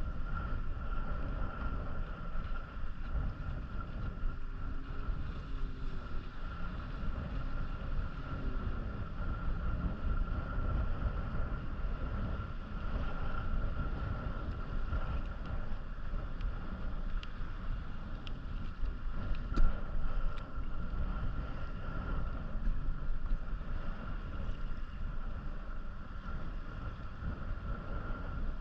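Wind rumbling on the microphone and water sloshing against a kayak, with a faint steady high tone underneath and a few light knocks about two-thirds of the way through.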